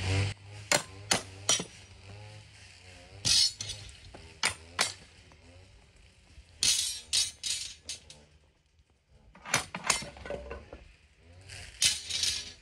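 Steel formwork clamps and bars being loosened and lifted off the wooden forms of a concrete wall cap, clinking and clanking metal on metal in short clusters of sharp knocks, about a dozen in all.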